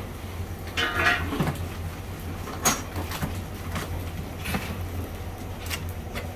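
A knife and gloved hands working cooked lamb heads on a steel tray: scattered sharp clicks, scrapes and short clatters, the loudest about a second in and near the three-second mark, over a steady low hum.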